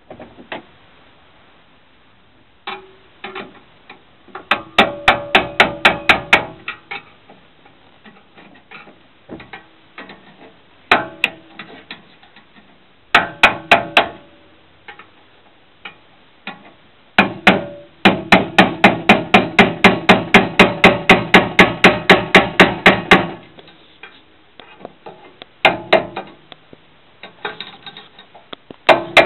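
Rapid hammer blows on a screwdriver set against a conduit locknut in a steel meter box knockout, driving the nut round to tighten it; each metal-on-metal tap rings through the box. The taps come in short bursts, with one long run of about five a second in the second half.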